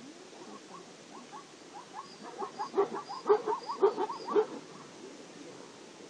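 Animal calling from a migrating herd of wildebeest and zebra: a rapid run of short barking calls, about four a second, building louder from about two seconds in and stopping after about four and a half seconds.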